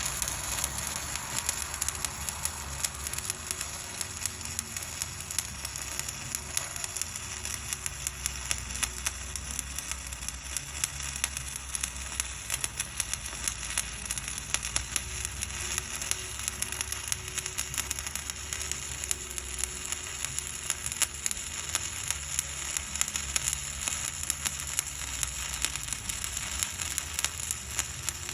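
Stick welding arc burning a 1/8" 7018 rod at about 124 amps: a steady dense crackle and sizzle with a low hum underneath.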